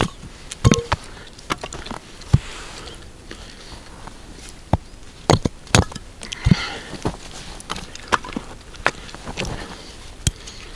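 Hatchet splitting a wooden board into kindling on a chopping block: an irregular series of sharp wooden knocks and cracks as the blade strikes and the wood splits apart.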